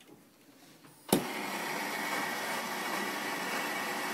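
Handheld gas torch lighting with a sharp pop about a second in, then its flame hissing steadily as it heats aluminum line set tubing for joining with alloy.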